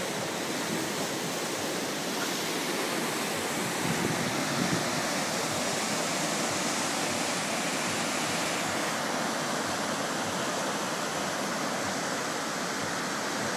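Steady rushing of churning, foaming water in a ship's wake.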